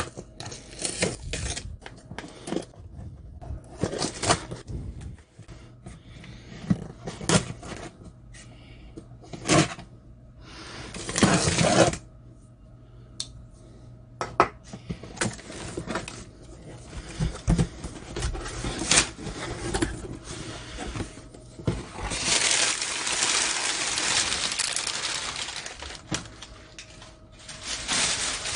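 A cardboard shipping box being slit open along its taped seam with a utility knife and its flaps pulled open. Scattered clicks and knocks of cardboard handling, with stretches of scraping and rustling, the longest about two thirds of the way through.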